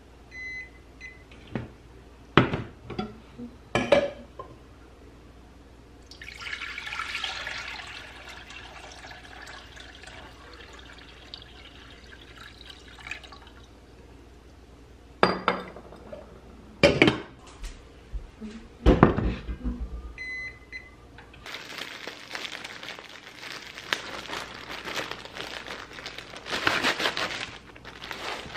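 Induction cooktop touch controls give a few short beeps, then steel pots and lids clank. Water is poured from a glass carafe into a pot for several seconds, followed by more clanks and beeps. Near the end a plastic bag rustles and crinkles.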